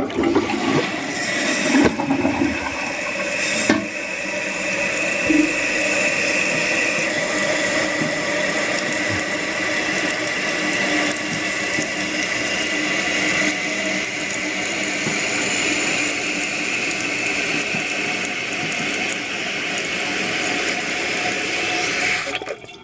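Toilet test-flushed, then the tank refilling through a new fill valve: a steady rush and hiss of water with a faint whistle, which cuts off suddenly near the end as the float shuts the valve.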